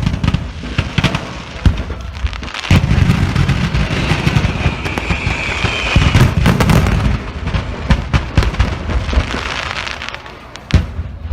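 A truckload of display fireworks going off by accident: a dense, continuous barrage of crackling with many sharp bangs, the heaviest at the start, about three seconds in, about six seconds in and near the end. A thin whistle sounds midway.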